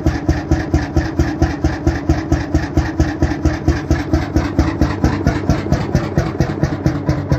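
Krimo single-cylinder 21.9-litre hot-bulb oil engine running steadily, its exhaust pulses making an even, rapid beat.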